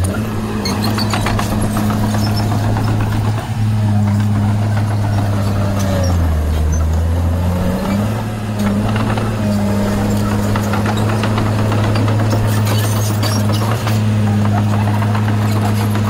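Diesel engine of a small Komatsu crawler bulldozer running steadily while pushing dirt, with rattling clicks on top. Its pitch sags about six seconds in and recovers about two seconds later, as the engine takes the load of the blade.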